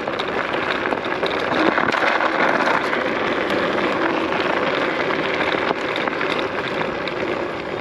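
Nami Klima 60V electric scooter being ridden: a steady rush of tyre, road and air noise.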